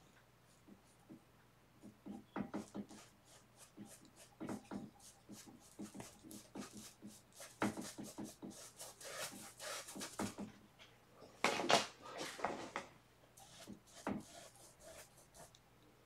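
Paintbrush working acrylic paint onto a stretched canvas: a run of quick dabs and taps, with longer scratchy scrubbing strokes a little past the middle and again about three-quarters of the way through.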